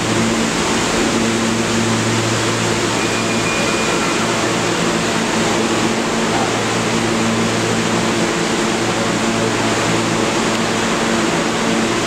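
A New York City subway train standing at the platform with its doors open: a steady low hum over a broad rush of noise.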